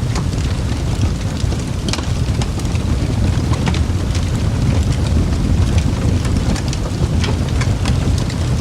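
Fireplace crackling: a steady low rumble of burning wood with scattered sharp pops and crackles, a few louder ones standing out.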